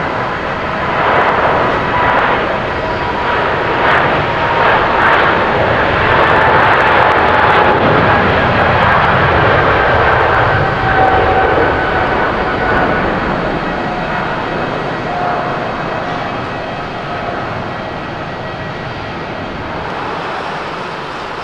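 Boeing 777-300ER's GE90 turbofans at takeoff thrust during the takeoff roll and lift-off: loud jet engine noise with whining tones that slowly fall in pitch. It is loudest about halfway through, then fades as the aircraft climbs away.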